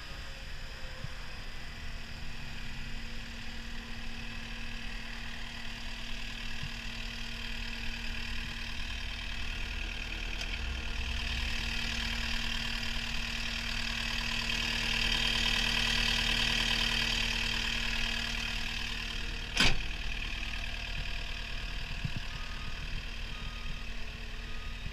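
CAT 236D skid steer loader's diesel engine running steadily at idle, swelling louder for a few seconds around the middle. A single sharp clack sounds near the end.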